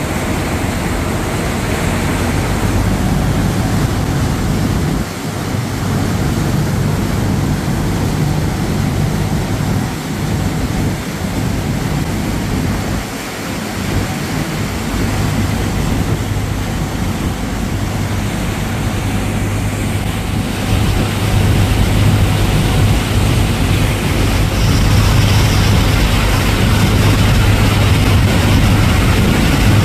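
Harbour ferry under way: the engines' steady low drone over the rush of the churning wake, with wind on the microphone. The engine drone grows louder about two-thirds of the way through.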